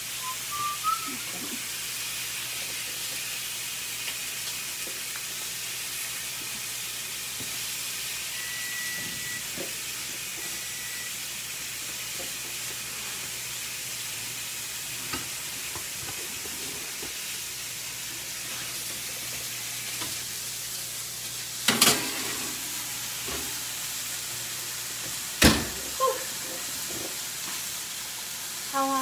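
Steady sizzling of food frying in a pan, with two sharp clatters about three and a half seconds apart near the end.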